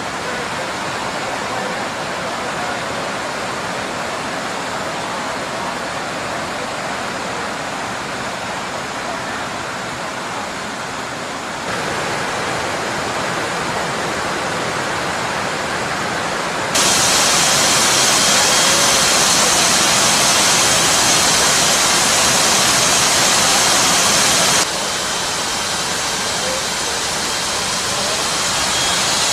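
Steady roar of rushing wind and engine noise through the open paratroop jump door of a C-17 Globemaster III in flight. The roar jumps louder and brighter about 12 and 17 seconds in, then drops back about 25 seconds in.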